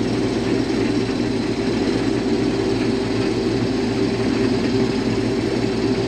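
Case IH Axial-Flow combine running steadily while harvesting wheat: a constant engine and threshing drone with a few steady low hums underneath.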